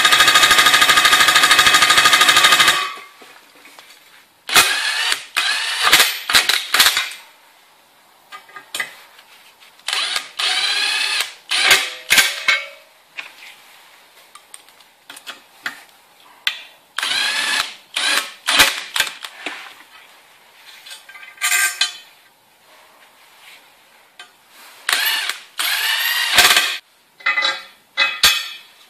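A cordless impact drill hammers for about three seconds as it drives a stud fastener into a steel plate. After that come several shorter runs of the tool, a second or two each, their pitch rising and falling, with small clicks of metal parts being handled in between.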